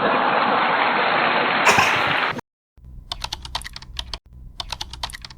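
A dense hiss for about two and a half seconds that cuts off suddenly, then after a short gap a run of quick, even clicks, about five or six a second, like keys being typed.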